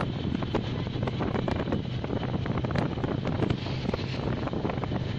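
Wind rushing over the microphone of a moving motorcycle, with a steady low engine hum underneath.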